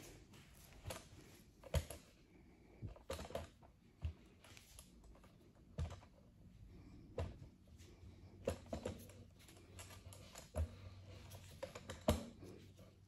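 Irregular light clicks and knocks in a quiet room, spaced unevenly about half a second to a second and a half apart.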